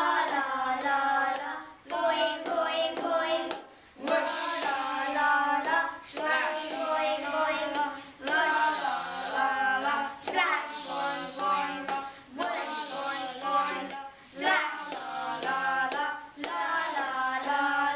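A group of young boys singing and chanting overlapping layered parts, 'la la la' phrases repeating about every two seconds, with sharp hand-percussion strikes between the phrases.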